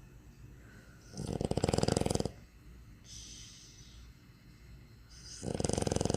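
A dog snoring in its sleep: two loud, rattling snores about four seconds apart, with a softer breath between them.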